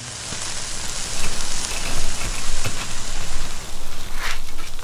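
Meat sizzling on a hot asado grill: a loud, dense sizzle that builds in over the first second, with a couple of sharp fat pops in the second half.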